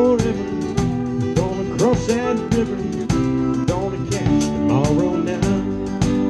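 Live country band playing: a drum kit keeps a steady beat about twice a second under guitar, bass and a fiddle sliding between notes.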